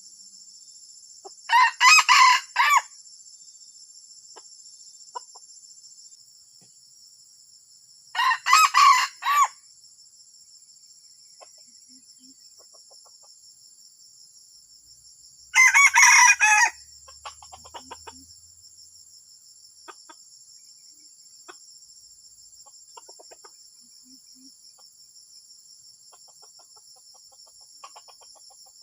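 Red junglefowl crowing three times, each crow short, about a second long and some seven seconds apart, over a steady high-pitched whine.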